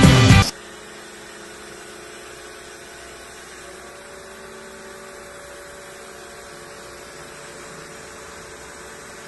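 A music cue cuts off about half a second in. After it comes a steady faint hum with hiss, holding a few unchanging tones.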